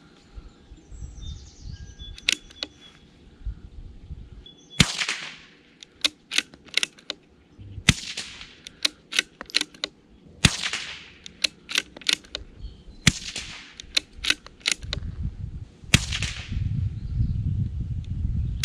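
Five shots from a CZ 457 .22 LR bolt-action rifle, about three seconds apart, firing a five-round group. Between shots the bolt is worked in a few quick metallic clicks.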